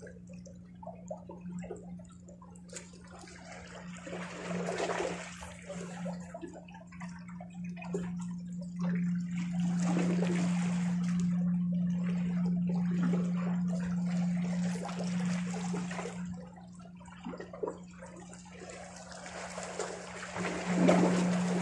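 Small sea waves washing and sloshing against shoreline rocks, swelling and fading every few seconds, with a steady low hum underneath.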